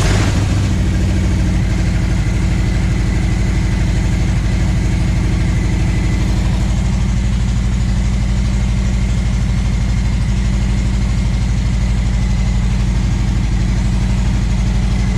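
Harley-Davidson Tri Glide V-twin, fitted with a Screaming Eagle Extreme Ventilator high-flow air cleaner, idling steadily in neutral with an even, pulsing beat, just after being started.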